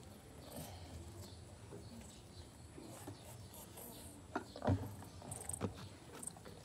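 Soft handling noises as a cat is held and moved on a wooden table: faint rustling with a few short knocks, the loudest about four and a half seconds in.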